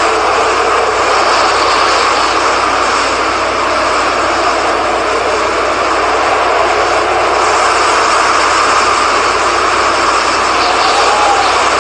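Loud, steady rushing of storm wind, the wind ahead of a hurricane's landfall.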